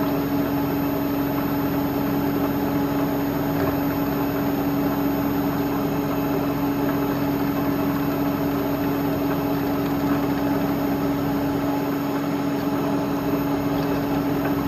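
Milling machine running steadily with a constant hum, its end mill cutting slowly under very light feed pressure into a broken stud of hard steel.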